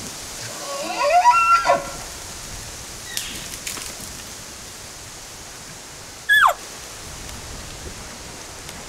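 Elk calling: a whistling call that climbs in pitch about a second in, like a bugle, and a short call sliding steeply down near six seconds, like a cow elk's mew. A steady rushing hiss runs underneath.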